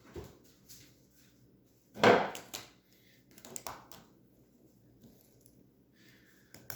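Handling noises: a clatter of knocks about two seconds in, a few smaller knocks around three and a half seconds, and a sharp click near the end, as objects are picked up and set down.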